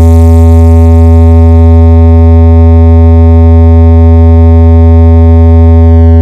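A single very loud, deep synthesizer bass tone held steady on one note, with a buzzy row of overtones above it: a sustained bass test tone from a DJ sound-check track, made for checking the speakers' low end.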